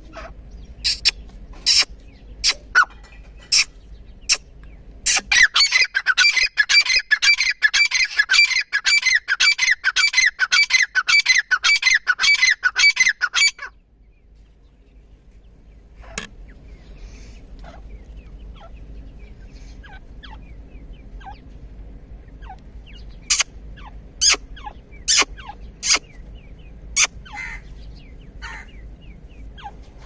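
Grey francolins calling: a fast, loud run of repeated shrill calls from about five seconds in until nearly fourteen seconds, with scattered short sharp calls before it and again later.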